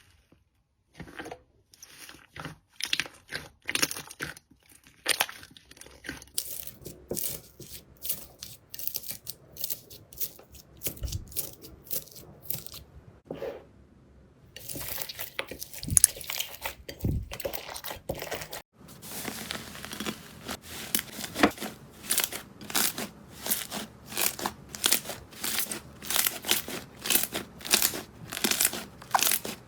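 Slime being pressed, squeezed and pulled, giving crisp crackling, popping and tearing sounds in short strokes. In the last third the strokes come in a regular rhythm, a little more than one a second.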